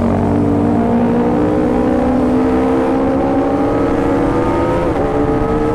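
Kawasaki Ninja ZX25R's inline-four engine pulling up through the revs under acceleration, its pitch climbing steadily, with a brief dip at a gear change near the end before it climbs again.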